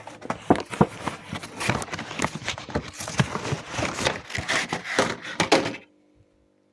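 Plastic clattering and rustling as a new air filter is fitted into its plastic housing: a quick, irregular run of clicks and knocks that stops abruptly near the end.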